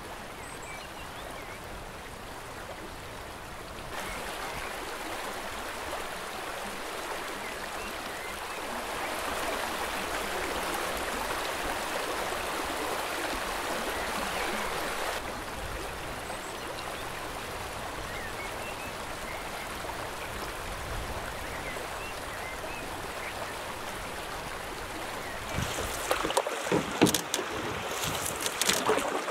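Shallow rocky river rushing and babbling over stones, a steady wash of water that is louder for a while in the middle. Sharp knocks and clicks come in near the end.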